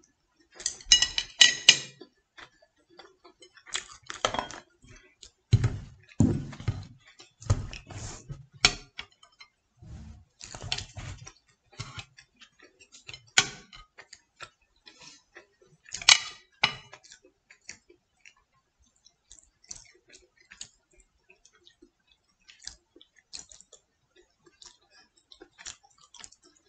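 Chopsticks and a fork clicking and tapping against ceramic plates and a rice bowl while eating. The clicks come irregularly, with a few heavier, duller knocks in the first half, then thin out to faint, sparse ticks.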